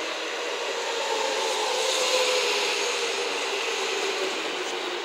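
JR West 207 series electric train pulling in along the platform and slowing to a stop. Wheel-and-rail noise with a motor whine that drifts slowly lower as it brakes.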